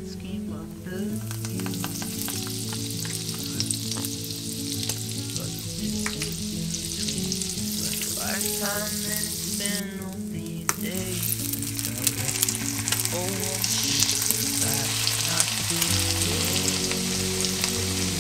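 Butter sizzling as it melts and foams in a nonstick frying pan, growing louder near the end as sliced potatoes fry in it. Soft background music plays underneath.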